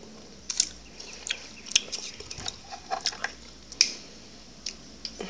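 Close-miked wet mouth sounds of eating sticky ambuyat (sago starch paste): irregular lip smacks and sharp clicks, the loudest a little before four seconds in.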